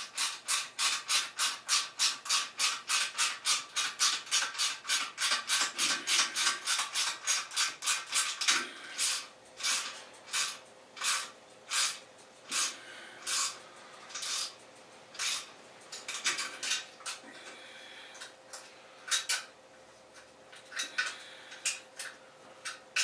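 Ratchet wrench clicking as the engine mount nuts are tightened. A quick, even run of about four or five clicks a second for the first eight seconds or so, then slower, spaced strokes with pauses between them.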